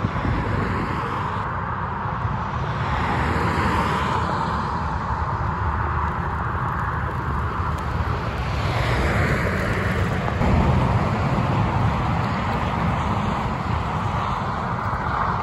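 Wind rushing over a phone's microphone while riding a bicycle: a steady rumble with a hiss that swells and eases.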